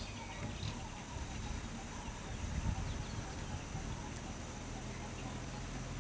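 Low vehicle engine rumble, settling into a steady idle hum in the second half, with faint bird chirps over it.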